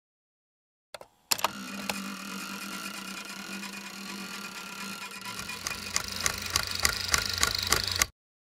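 Production-logo sound effect: a click and a sharp hit, then a steady mechanical whirring drone. A low rumble joins and a run of clicks speeds up and grows louder before the whole sound cuts off suddenly.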